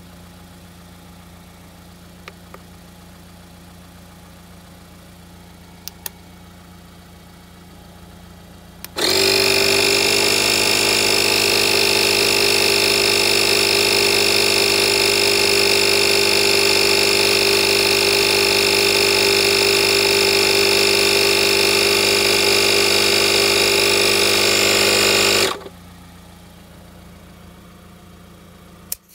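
TEROMAS portable tire inflator's electric compressor switching on about nine seconds in, running loud and steady for about sixteen seconds, then cutting off abruptly as it reaches its set pressure and stops automatically. Before and after it, a low steady hum with a few small clicks.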